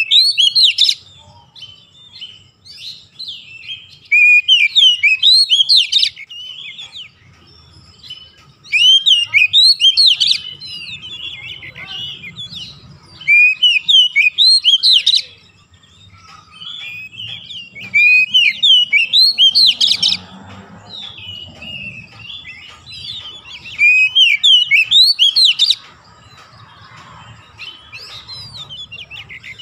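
Oriental magpie-robin (kacer) singing: six loud bursts of rapid, sweeping whistled notes, one every four to five seconds, with quieter warbling in between.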